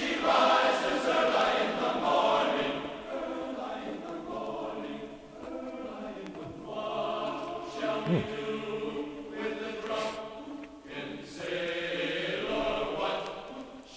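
A choir singing long held chords that change every second or two.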